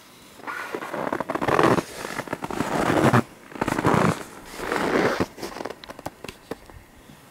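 Footsteps crunching through deep snow: about five slow, crackly steps, growing fainter after about five seconds.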